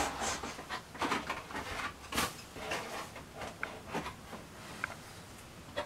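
EPO foam model-aircraft parts being handled: quiet, irregular light knocks, rubs and rustles, with a sharper click about two seconds in.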